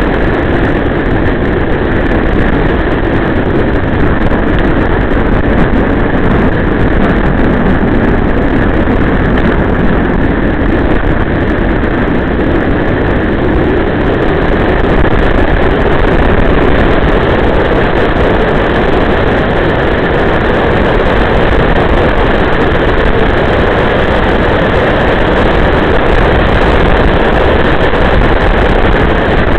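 Steady, loud driving noise from aboard a moving vehicle climbing a mountain road: engine running with rushing wind and road noise.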